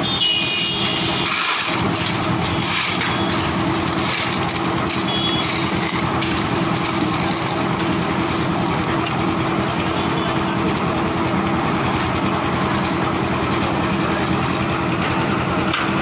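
Concrete mixer machine running steadily, its engine and turning drum giving a constant hum.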